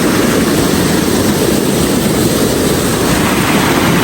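Steady rush of flowing water from a forest stream or cascade, an even noise with no breaks or changes.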